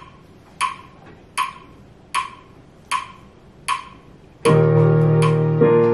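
Metronome clicking at 78 beats a minute, six clicks on their own, then instrumental music with sustained chords comes in about four and a half seconds in, the clicks carrying on over it.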